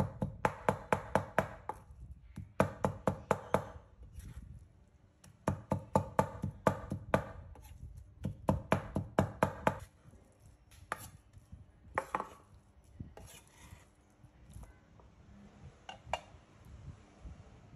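Cleaver chopping pork on a wooden cutting board, mincing it by hand: quick runs of sharp knocks, about five or six a second, in four bursts. In the last several seconds the chopping gives way to a few scattered knocks.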